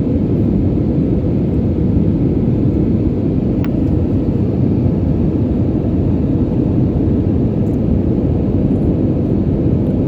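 Airliner cabin noise heard from a passenger seat: the steady low noise of the engines and the airflow past the fuselage, even throughout, with one faint click just under four seconds in.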